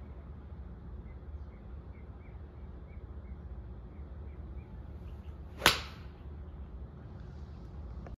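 Golf iron striking a ball off a driving-range hitting mat: one sharp crack about two-thirds of the way through, over a steady low background rumble.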